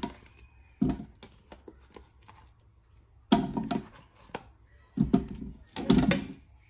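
Raw potato slices dropped one by one, then tipped off a plate, into the oiled stainless-steel inner pot of an Instant Pot: irregular soft thuds and knocks, the loudest in bunches about three seconds in and again near the end.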